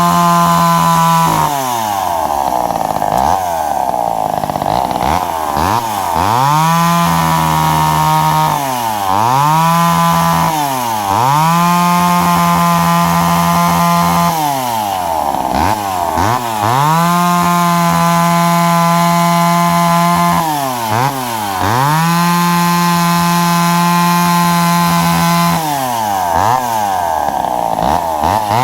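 McCulloch Pro Mac 10-10S two-stroke chainsaw cutting into a log round at full throttle. Its engine note drops as the chain bites and bogs under load, then climbs back to high revs, over and over.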